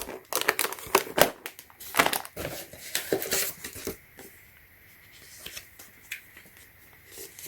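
Packaging being handled while keyboard switches are unpacked: irregular crinkling and crackling with small clicks for about four seconds, then only a few faint clicks.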